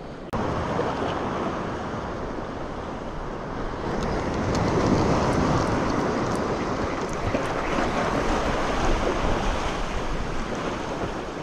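Sea waves washing with wind blowing on the microphone, a steady rushing noise that cuts in suddenly just after the start and grows a little louder about four seconds in.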